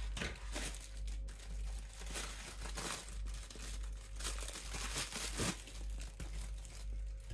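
Thin clear plastic bag crinkling irregularly as it is worked and pulled open by hand to free a silicone mold.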